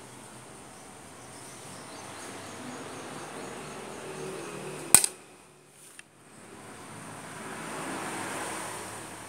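Steady background hiss with a faint low hum, broken about five seconds in by one sharp click, the loudest sound; a smaller click follows a second later.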